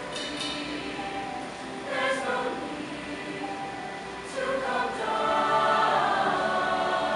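Mixed show choir of female and male voices singing in harmony, swelling louder about four and a half seconds in.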